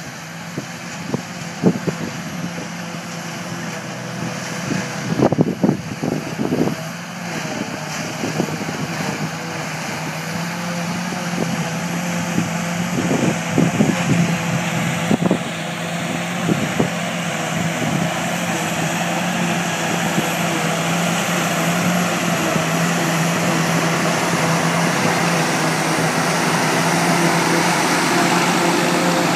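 John Deere tractors and a JF 1050 trailed forage harvester working together, with a steady engine drone and a constant whine from the harvester. The sound grows steadily louder as the machines come closer. A few sharp knocks come in the first half.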